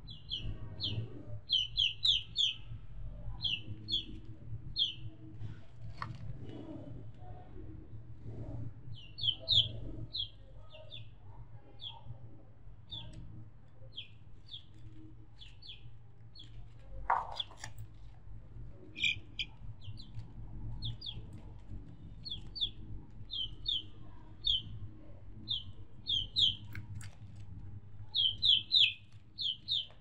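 Small birds chirping: short high chirps, often in quick pairs or clusters, over a low steady rumble. A single lower, louder call stands out about seventeen seconds in.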